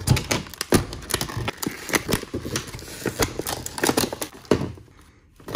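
Scissors cutting through a stiff plastic bubble pack: a quick, irregular run of sharp snips, clicks and crackles of the hard plastic. It tails off about four and a half seconds in.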